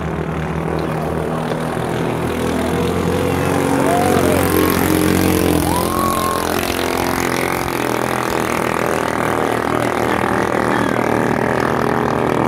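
Engines of small racing boats with 6.5-horsepower ketinting long-tail motors running at full throttle as the boats speed past. The sound grows louder over the first four seconds, then holds steady.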